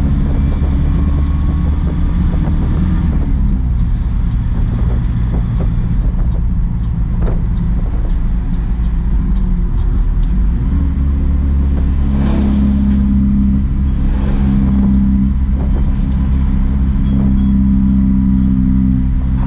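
JAC truck's engine running on the road. Its note falls about three seconds in, then picks up again about ten seconds in and holds steady under load.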